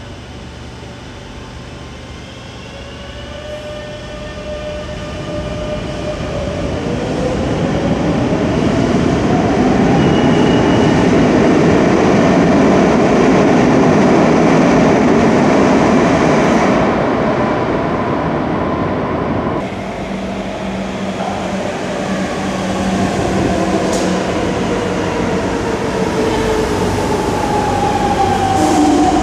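Madrid Metro electric trains. One pulls out, its traction-motor whine rising in pitch as it accelerates, and then runs loudly past. Later another train comes in with its motor whine falling as it brakes.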